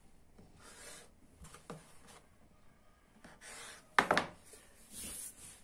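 Hands rubbing and sliding sheets of puff pastry on a floured wooden board, with soft scraping strokes. About four seconds in, a kitchen knife knocks sharply on the wooden board.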